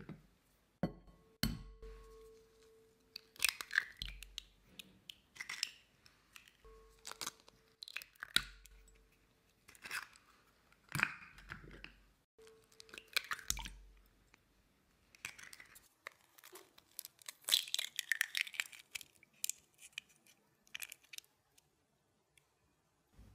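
Eggs knocked one at a time against a glass measuring jug and cracked open by hand. Three sharp knocks each leave the glass ringing briefly, followed by the crunch and crackle of the shells being pulled apart, with the last burst of crackling near the end.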